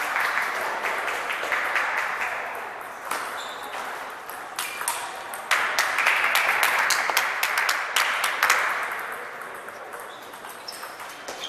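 Table tennis balls clicking off paddles and tables from several matches at once, irregular sharp ticks over a steady hubbub of a large hall.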